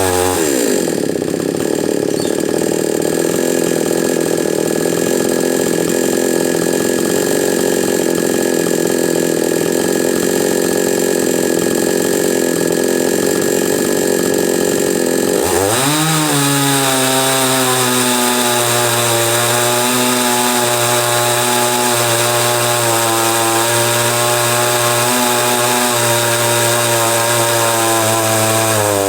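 Chinese 45cc two-stroke chainsaw with new piston rings revving up hard at the start and held at high revs for about fifteen seconds. It then drops sharply back to a steady idle.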